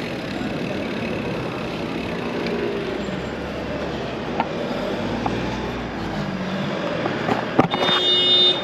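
Road traffic passing: car engines and tyre noise, with a heavy vehicle's low engine rumble swelling for a few seconds midway. A brief shrill squeal sounds near the end.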